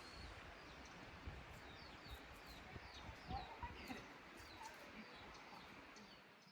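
Faint birds chirping: short, repeated, downward-sliding calls, about two a second, with soft low thumps underneath. The sound fades out at the very end.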